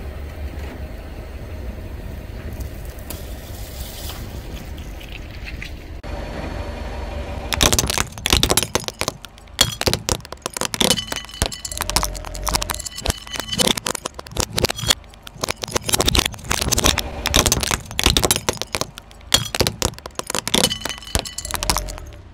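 A car running with a steady low rumble. A few seconds in this gives way to a car tyre slowly crushing brittle plastic toys: a long, dense run of sharp cracks, snaps and crunches.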